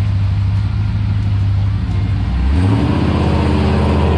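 Fuel-injected 383 cubic inch GM crate V8 of a 1968 Chevrolet pickup running with a low, steady exhaust note, rising in pitch about two and a half seconds in and holding there.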